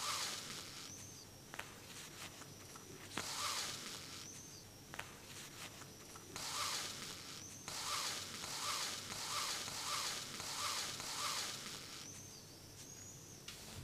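Sewing thread being drawn through denim by hand: rasping swishes as each stitch is pulled tight, then a quick run of about six evenly spaced swishes, with a few light taps between them.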